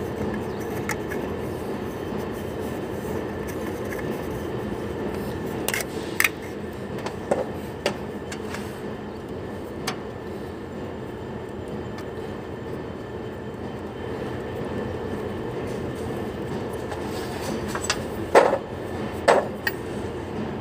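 A few sharp metallic clicks and knocks as parts and fittings are handled on a truck's air dryer valve, in two clusters about six seconds in and near the end, over a steady mechanical drone.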